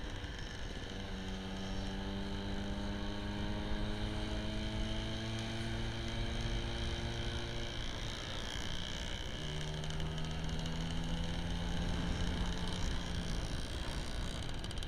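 Scooter engine running under load, its pitch climbing slowly as it pulls, then dropping about eight seconds in and rising again until another drop near the end, as the rider shifts up through the gears. A steady low rumble of wind and road noise runs underneath.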